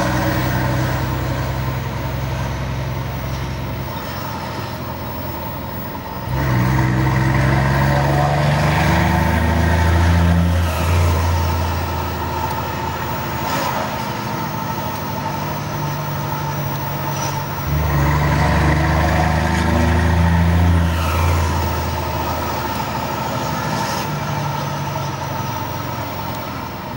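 Scania truck's diesel engine heard from inside the cab while driving. The engine note rises and grows louder as it pulls away about 6 seconds in and again about 18 seconds in, and eases off after each pull.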